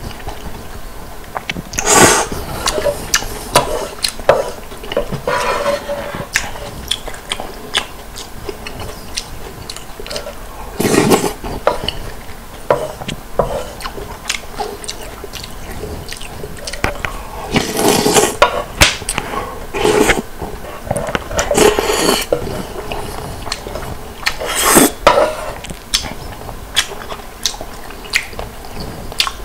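Close-miked slurping of ramen noodles and broth off a wooden spoon, with wet chewing and mouth clicks throughout. Several longer, louder slurps come about 2, 11, 18, 22 and 25 seconds in.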